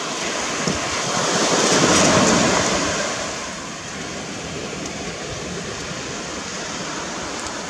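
Sea surf washing on a beach: a steady hiss of waves that swells about two seconds in as a wave breaks, then settles back to a steady wash.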